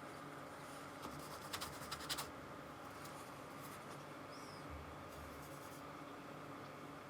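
Paintbrush loaded with acrylic paint scratching and dabbing on the canvas, with a quick run of sharp taps about one and a half to two seconds in.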